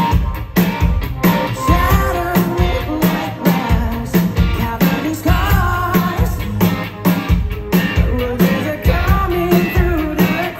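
Rock band playing live: a male lead vocalist singing over electric guitar and a steady, driving drum beat.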